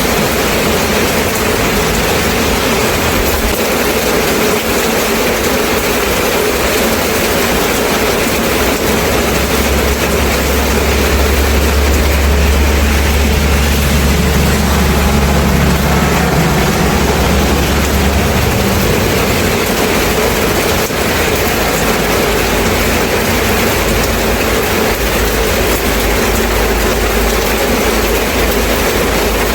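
Steady rain falling, a continuous even hiss. A deep low rumble swells in under it about a third of the way in and fades out just past the middle.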